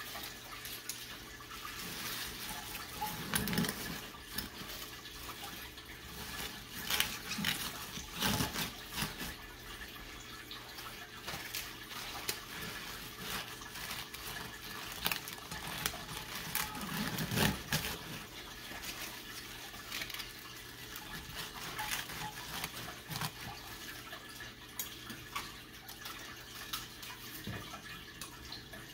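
Wet mustard greens being pressed and packed by hand into a large glass jar: irregular rustling and crunching of leaves and stems, with a few soft thumps.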